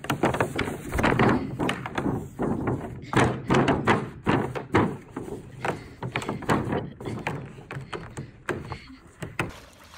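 Hollow plastic thunks and bumps of a kiddie wading pool as a German Shepherd carries, drags and drops it on grass by its rim, repeated many times in quick succession.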